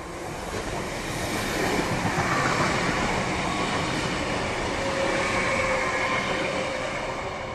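ODEG Stadler KISS double-deck electric multiple unit running past close by. Its running noise swells over the first two seconds, then holds steady with a faint whine in it.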